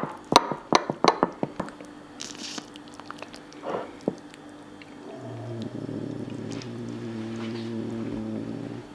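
A knife cutting through a baked lasagne gives a quick series of sharp clicks and crunches, followed by softer squelching as a spatula works under a slice. From about five seconds in, a steady low hum holds until just before the end.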